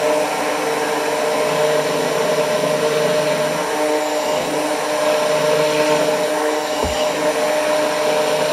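Handheld immersion blender running steadily, its blade whirring in egg yolks and oil as it emulsifies them into mayonnaise. Two brief low bumps come about halfway through and near the end.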